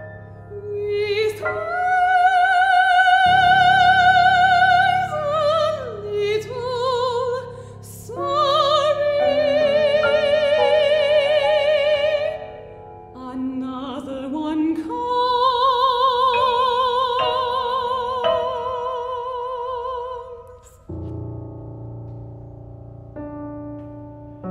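Classical soprano singing long held notes with wide vibrato over piano accompaniment. The voice comes in about a second in and stops about four seconds before the end, leaving the piano playing alone.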